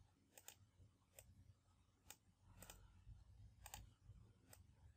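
Faint computer mouse clicks, several spread over a few seconds, some in quick pairs.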